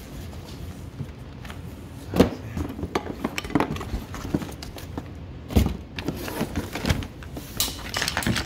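Hand rummaging through a cardboard box of clothes and small items: irregular knocks, clatters and rustling as things are shifted about, the loudest knocks about two seconds and five and a half seconds in.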